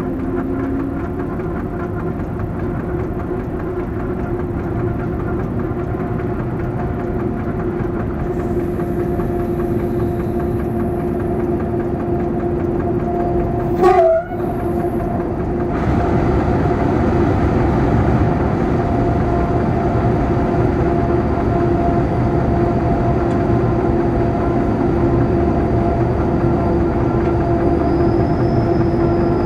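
BB 67400-class diesel-electric locomotive running steadily under power, heard from inside its cab as a continuous engine drone. A brief loud sound cuts in about halfway, and soon after the running grows louder and fuller as the locomotive enters a tunnel.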